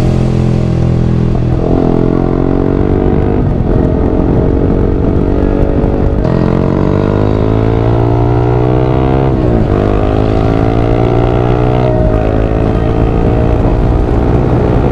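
Yamaha R15 V3 single-cylinder engine heard from the rider's seat, climbing in pitch as it accelerates, with sudden drops at gear changes about 3.5 and 9.5 seconds in. Wind and road noise run underneath.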